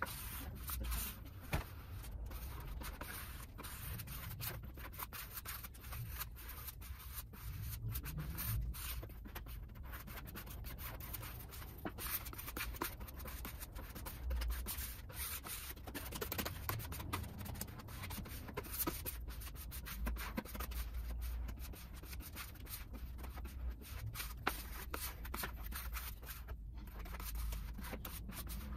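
A hand-held applicator pad rubbing finish into a walnut plywood panel, a continuous run of short, irregular back-and-forth wiping strokes.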